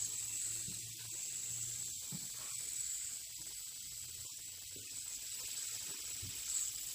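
Fidget spinner whirring freely in the hand, a steady faint hiss from its spinning bearing. The owner thinks the bearing was dulled by cologne he rubbed on it, which quiets it but cuts the spin short.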